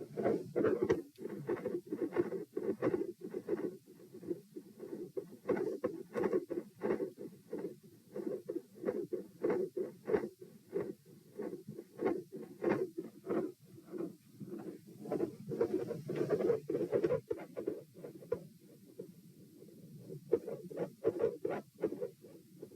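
Heartbeat sounds: a regular run of soft lub-dub beats whose loudness swells and fades every few seconds. This is a pronounced respiratory phasic pattern, the beats varying with breathing. The beats go quieter for a couple of seconds near the end, then pick up again.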